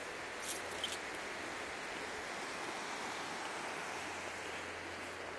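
Steady, even rushing of a flowing river.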